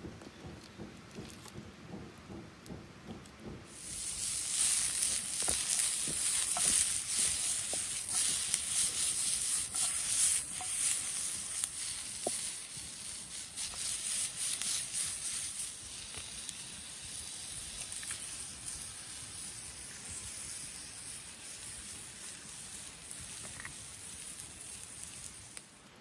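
Sausages frying in a pan over a campfire: a steady hiss full of fine pops and crackles. It starts suddenly about four seconds in, and is loudest for the next ten seconds or so before slowly easing off.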